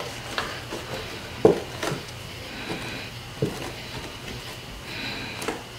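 Thin plastic body of a clear stackable shoe box being folded and handled: irregular crinkles and taps of plastic, the sharpest about a second and a half in.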